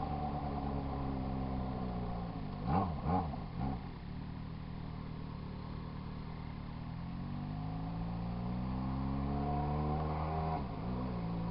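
Yamaha XJ6 inline-four engine running, with three quick throttle blips about two and a half seconds in. Then the revs climb slowly and drop back sharply near the end.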